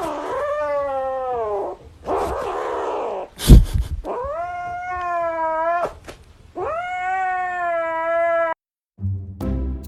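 A cat making three long, drawn-out yowling meows, with a rough, noisy stretch between the first two. A single sharp knock about three and a half seconds in is the loudest sound.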